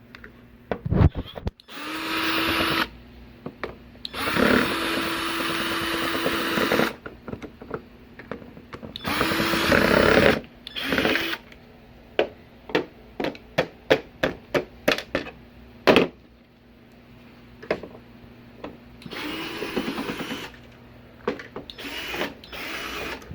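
Cordless power screwdriver or drill running in four short bursts, spinning up at the start of each, as screws come out of a flat-panel TV. Between the bursts comes a run of sharp clicks and taps.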